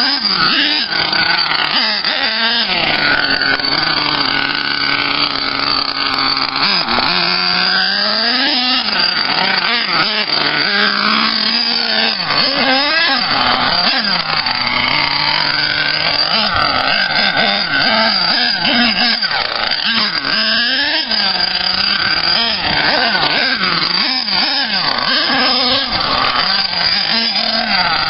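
Axial .28 two-stroke nitro engine of an HPI Savage RC monster truck, revving up and down over and over as it is driven, a buzzing note that rises and falls in pitch.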